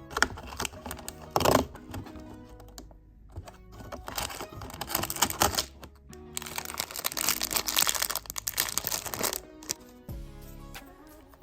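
Dense crinkling and small clicks of packaging and Lego pieces being handled during an unboxing, in two busy stretches that stop about a second before the end, over soft background music.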